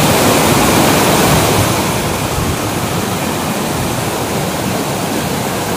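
Water pouring down a sloped stone weir into a pool: a steady rush of falling water, a little louder in the first couple of seconds.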